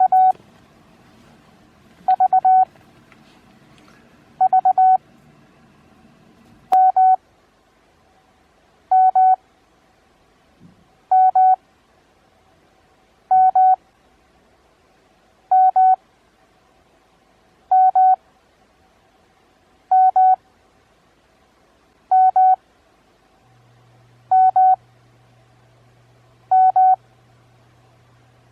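Morse code practice tone keyed at 20 words per minute with Farnsworth spacing at 9 words per minute. It opens with three V's (di-di-di-dah), then sends two-element letters, one about every two seconds with long gaps between them.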